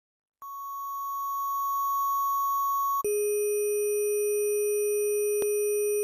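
Synthesized intro sting of long held electronic tones. A steady high tone fades in, then about three seconds in it steps down to a lower held tone with a fuller sound.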